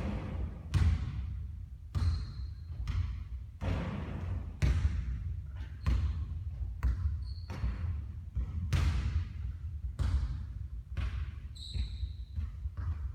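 A basketball bouncing on a court floor, about a dozen thuds roughly once a second, with a brief high squeak three times.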